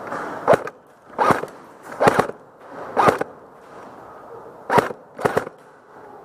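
Airsoft guns firing single shots: six sharp cracks, the first four under a second apart, then a pause of nearly two seconds before the last two.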